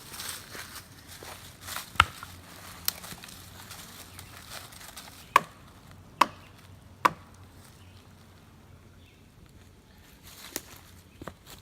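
Wood knocks: a stick struck against a tree trunk, the call-and-response knocking used by Bigfoot seekers. One sharp knock about two seconds in, then three more a little under a second apart past the middle.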